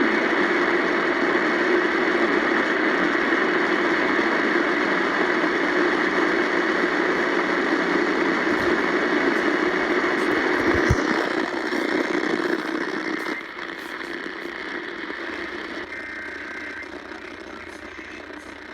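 Steady hiss of static from a weather radio receiver's speaker, with no voice or alert tones on the channel. It drops noticeably in level about eleven to thirteen seconds in.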